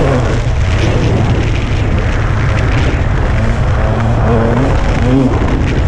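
Dirt bike engine running under way, its pitch rising and falling several times with the throttle, over heavy wind rumble on the microphone.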